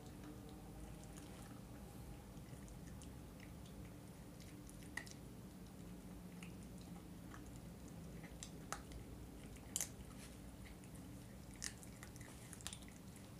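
Schnauzer puppy chewing a raw chicken drumstick: soft wet gnawing broken by scattered sharp crunches and clicks, the loudest about ten seconds in.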